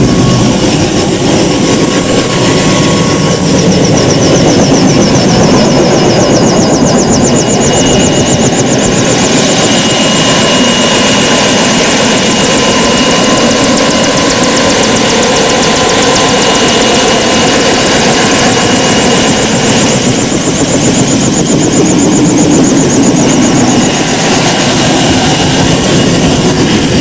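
Helicopter running: a steady, loud noise of engine and rotors with a thin high whine.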